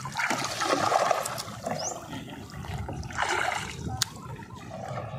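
Shallow water splashing and trickling in irregular spells, as hands and feet move through it, with one sharp knock about four seconds in.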